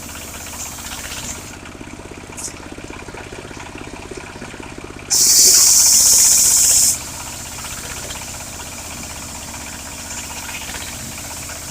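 Engine of a portable circular sawmill running steadily. A loud, high hiss comes in suddenly about five seconds in and cuts off abruptly about two seconds later.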